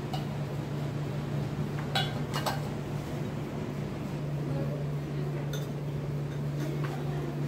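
Spoons and steel serving dishes clinking against plates and bowls as food is served and eaten, a few sharp clinks scattered through, two close together about two seconds in, over a steady low hum.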